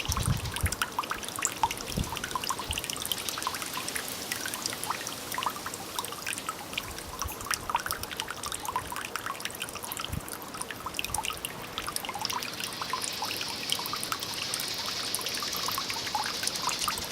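Water running from a bamboo spout (kakehi) and trickling and splashing into a stone water basin, a steady stream of small drips and splashes over an even rush of water. The flow is fairly strong. There are a few soft low thumps.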